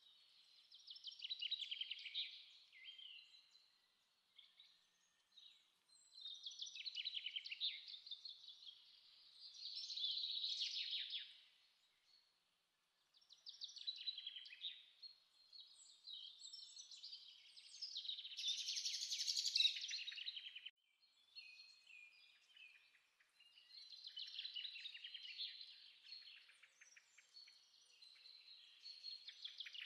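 Birds calling in repeated high, rapid chattering bouts a few seconds long, with short pauses between them.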